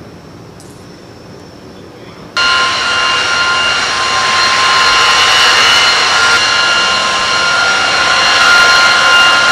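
Jet aircraft engine running: a steady loud rush with high, steady whining tones. It cuts in suddenly about two seconds in, over quieter background noise.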